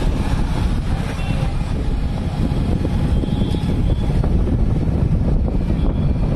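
Steady low rumble of wind and road noise from a moving vehicle, heard from on board.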